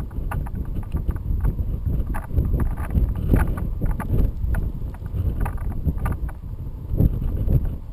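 Wind buffeting the microphone of a camera towed on a line under a paraglider in flight, with irregular light knocks and clicks scattered through it.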